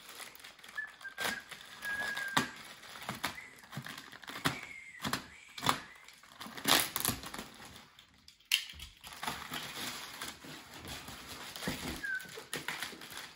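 Packaging wrap being pulled and torn open from a large flat parcel: irregular crinkling, crackling and rustling, with a few short squeaks.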